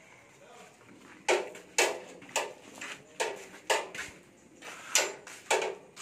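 A series of sharp, irregular knocks, some about half a second apart, over a quiet background.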